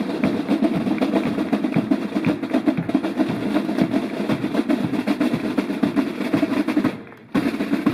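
Marching band side drums played with sticks in a rapid cadence of quick strokes and rolls, with a brief break near the end before the beat picks up again.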